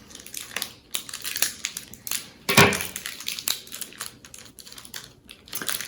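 Crinkling and crackling of a snack wrapper on a peanut butter cup being handled and torn open, with one louder crackle about two and a half seconds in.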